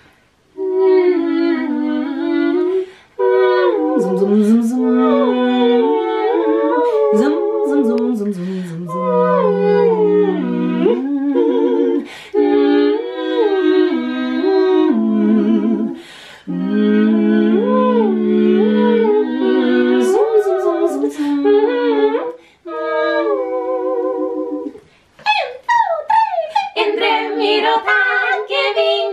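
Three women singing together in close harmony, unaccompanied, in sustained sung phrases with brief pauses between them.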